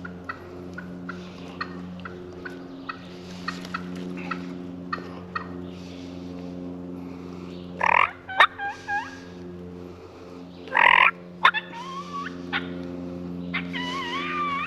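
Wild turkeys calling close in: two loud gobbles, one about halfway through and another a few seconds later, each followed by wavering yelp-like calls, with light clucking ticks earlier. A steady low hum runs underneath.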